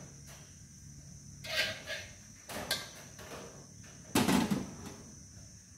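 Metal kitchenware clattering as a steel tray of bowls is handled and set down on a pot: a few knocks and scrapes, the loudest about four seconds in. A steady high insect trill, like crickets, runs behind.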